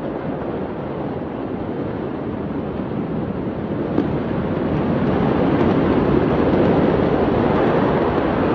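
Steady outdoor rushing noise on a phone recording, swelling gradually louder, with a single short click about four seconds in.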